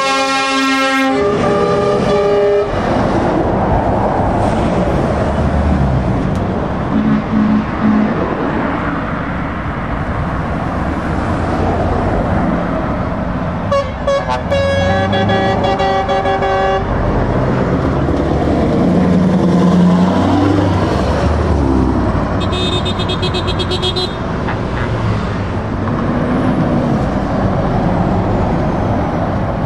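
Heavy trucks driving past with their diesel engines running, and multi-tone truck air horns sounding several times: a chord that stops about a second in, a short blast soon after, a longer one about halfway through, and a higher-pitched horn about three quarters of the way in.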